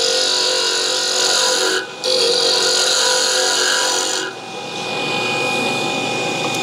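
A pen blank spinning on a benchtop mini lathe, worked by hand with a steady rasping hiss that breaks off briefly about two seconds in. About four seconds in the contact stops and the lathe runs on alone with a quieter hum.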